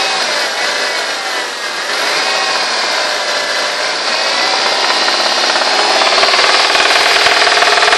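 Mitsubishi Lancer IX 2.0 engine running with a knock, its pitch rising and falling in the first few seconds, then held steadier and a little louder from about five seconds in. The owner links the knock to a connecting rod.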